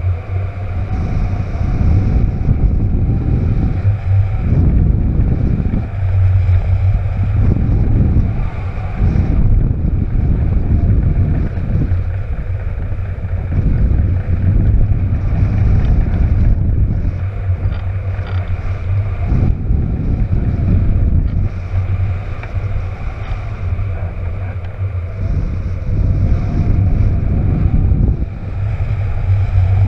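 Wind buffeting the microphone: a loud, gusty low rumble that swells and dips every second or two.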